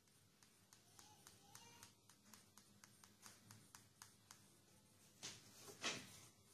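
Faint clicks of a stylus tip tapping on a smartphone's glass touchscreen, about two or three a second, with two louder taps near the end.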